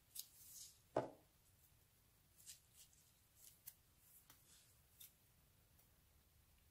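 Faint handling noises of a slime-filled plastic piping bag: soft crinkling and rustling of the plastic, with one dull thud about a second in and a few light clicks and taps after it.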